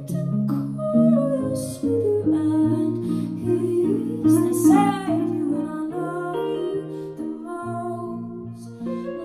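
Live song: plucked guitar playing sustained notes, with wordless singing sliding in pitch about five seconds in.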